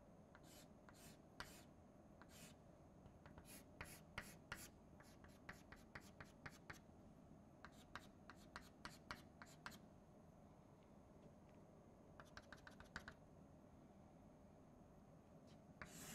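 Chalk on a blackboard: faint short taps and scratches as small arrows and lines are drawn, coming in several quick runs of strokes with pauses between.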